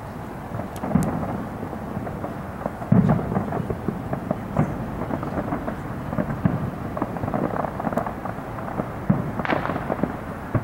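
Aerial fireworks shells bursting: a string of deep booms with crackling pops in between, the heaviest boom about three seconds in.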